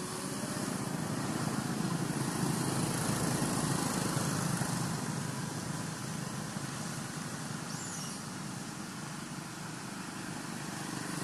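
A steady low rumbling noise that swells over the first few seconds and eases after about five seconds.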